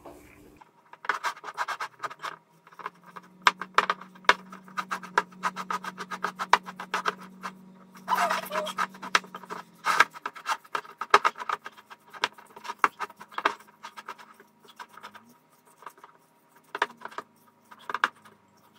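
A spoon stirring a soft cottage-cheese and egg filling in a ceramic bowl: quick, uneven clicks and scrapes of the spoon against the bowl, pausing for about two seconds late on.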